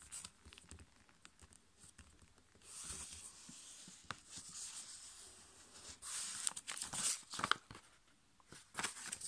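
Sheet of copy paper rustling and crinkling as it is folded and creased by hand, in two spells of scraping, about three and six seconds in, with a few light ticks.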